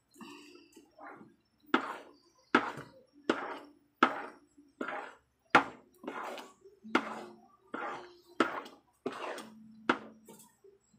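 Thick ube halaya being stirred in a pan, a utensil scraping and slapping through the paste in regular strokes, about three every two seconds.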